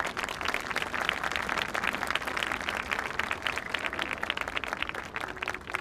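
A large stadium crowd applauding, a dense patter of many hands clapping that thins out near the end.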